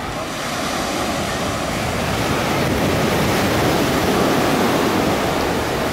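Ocean surf washing up the beach, a steady rush of water that swells over the first few seconds and then holds.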